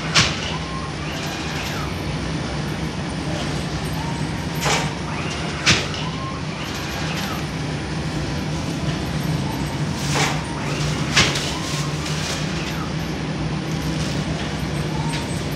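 Automatic flatbread conveyor oven running with a steady low hum. A pair of sharp metallic clanks, about a second apart, comes round about every five and a half seconds as the machine cycles, with faint squeaks in between.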